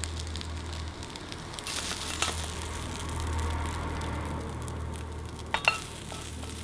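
Crumbled couscous patties sizzling steadily in a frying pan on a gas camping stove, with a few light clicks and scrapes of a plastic spatula.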